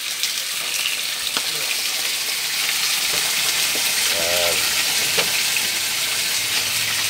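Pork steak slices frying in hot oil in an aluminium wok: a steady sizzle with a few sharp pops.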